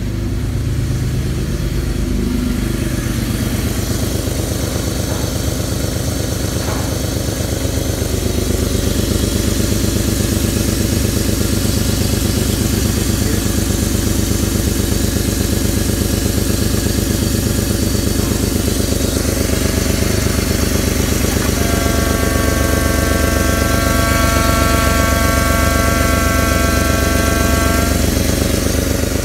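BMW M52TUB25 2.5-litre straight-six petrol engine running at a steady idle, heard close up in the engine bay. For several seconds in the second half, a high steady whine sounds over the engine.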